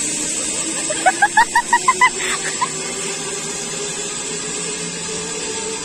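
Zipline trolley running along the steel cable with a steady whir. About a second in, a bird gives a quick run of about seven short rising chirps, followed by two fainter ones.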